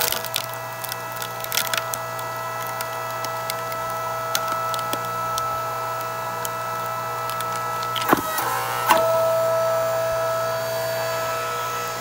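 Hydraulic log splitter running with a steady motor hum while its ram drives logs onto the wedge, and the wood cracks and splinters apart. The loudest cracks come about eight seconds in and again a second later, after which the hum grows louder.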